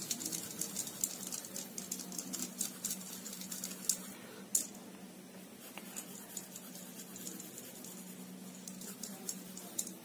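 Brown colored pencil scratching on paper while shading, a soft run of quick, irregular strokes and light ticks, busiest in the first few seconds, with two sharper ticks about four seconds in.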